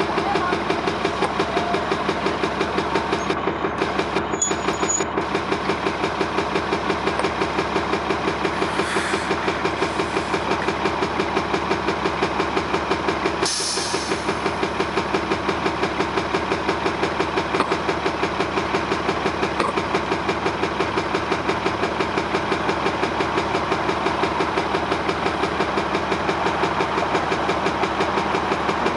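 Orion VII transit bus's Cummins ISL diesel engine running with a steady, rapid rhythmic pulsing of several beats a second, an abnormal sound that makes the bus seem about to break down. A short hiss comes about halfway through.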